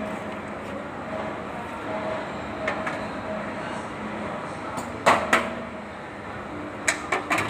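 Kubota D1402 diesel engine running steadily, with sharp metallic clicks over it: a pair about five seconds in and a quick cluster of four near the end.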